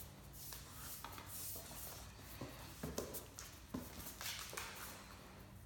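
Faint scuffling and scattered clicks as a Great Dane puppy and an adult Great Dane tussle over a stuffed toy on a hard stone floor, with a few short puppy grunts about halfway through.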